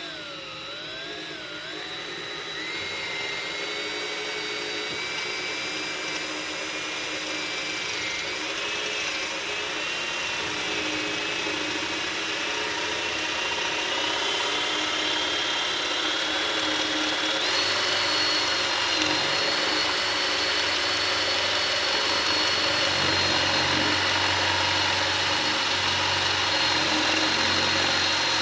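Electric hand drill boring a 3/4-inch spade bit into wood, running continuously. Its motor whine climbs in pitch over the first few seconds, then holds steady as it grows gradually louder.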